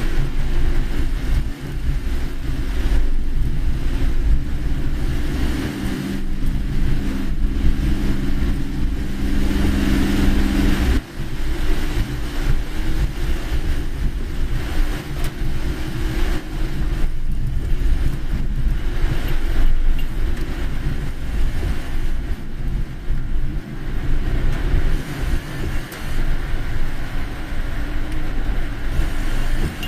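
A car driving on a wet road: a steady low rumble of engine and tyres under an even hiss. A steady low hum joins about six seconds in and stops about eleven seconds in.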